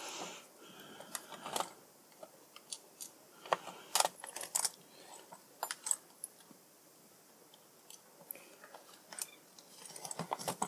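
Irregular small clicks and taps of hands handling and fitting the plastic parts of a hair straightener, the loudest about four seconds in and a quicker run of clicks near the end.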